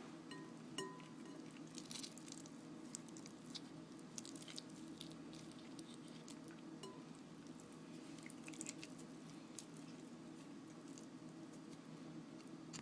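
Faint, soft wet squishing and small scattered clicks of very ripe avocado being squished and handled, over a steady low hum.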